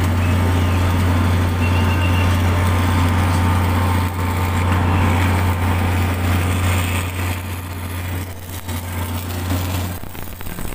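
Steady low engine drone of construction-site machinery with a general site din; the drone cuts off near the end.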